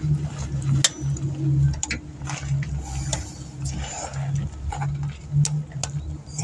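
Socket ratchet on a long extension clicking irregularly as it is worked back and forth on the AC compressor's 12 mm mounting bolts, with a low hum coming and going underneath.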